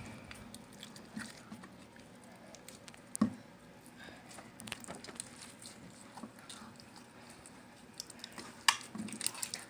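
Slime being squished and worked by hand: soft, irregular sticky clicks and pops, with two sharper pops about three seconds in and near the end.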